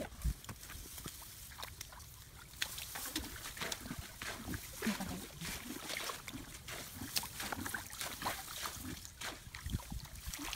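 Rustling and crackling of grass stalks being grabbed and pushed aside, with hands working in wet mud. Many scattered sharp crackles run throughout.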